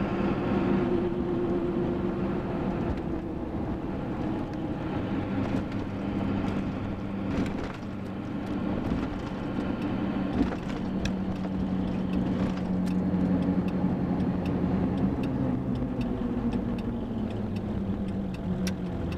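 In-cab road noise of a Ford F350 with a 7.3 Powerstroke diesel on Mickey Thompson Deegan 38 mud-terrain tires while driving: a steady low hum from the tires and the engine's drone, with road rumble under it. The hum fades somewhat near the end.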